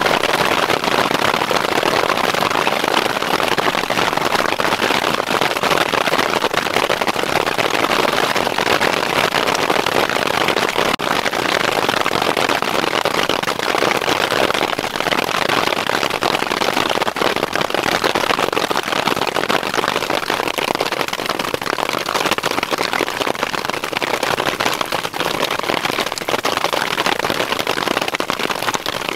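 Heavy hail and rain falling on the tarp and the ground: a loud, steady, dense patter of countless small impacts.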